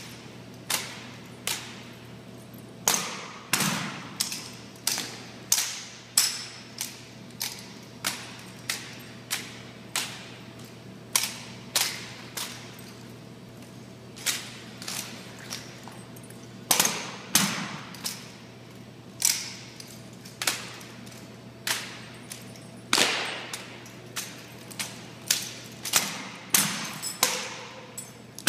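Rifle drill by a ceremonial drill team: sharp, echoing cracks of hands slapping and catching the rifles and rifle butts striking a tile floor, in a crisp uneven rhythm of one or two strikes a second with short pauses. A steady low hum runs beneath.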